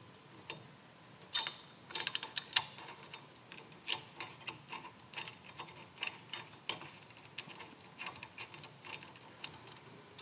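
Faint, irregular metallic clicks and taps as a brake pedal pad is fitted by hand onto its adapter plate on a motorcycle brake arm and its bolt is started.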